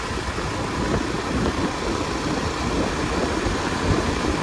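KTM Duke 250 ridden at highway speed: a steady rush of wind over the microphone mixed with the running of its single-cylinder engine.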